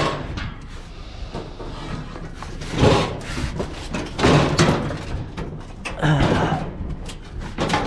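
Metal scrap being shoved and wrestled into place in a crowded load: a few loud clanks and scrapes, the strongest about three, four and a half and six seconds in.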